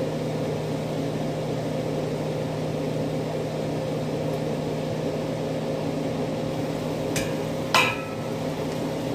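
Kitchen range hood exhaust fan running with a steady whir and hum. Near the end, two sharp metallic clinks as the pan lid is lifted off.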